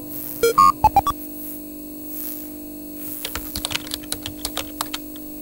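Retro-computer intro sound effects: a few short electronic beeps in the first second over a steady electrical hum, then a run of keyboard typing clicks from about three seconds in.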